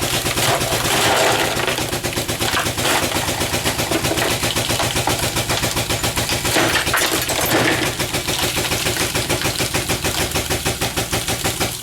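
A powered ram pulling copper tubing out of a refrigerator, running with a loud, rapid, rhythmic clatter over a low hum, which cuts off suddenly at the end of its stroke.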